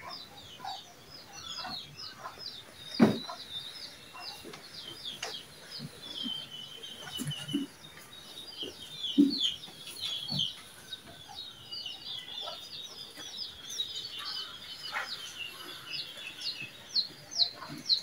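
Small birds chirping busily: a steady stream of short, high chirps, several a second. A few short knocks and handling sounds stand out, the loudest about three seconds in.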